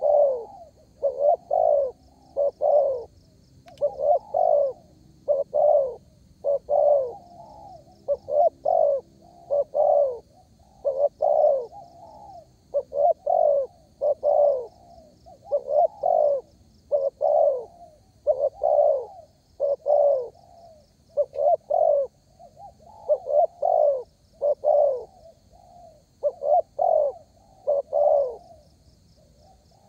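Spotted dove (derkuku) cooing in full song, a regular string of short coo phrases about one every second and a half. A faint, high, rhythmic pulsing runs behind it.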